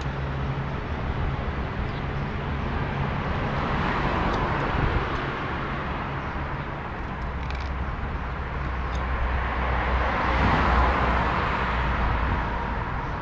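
Road traffic going by, with vehicles swelling past about four seconds in and again near ten seconds, over a low steady hum, and a few faint clicks.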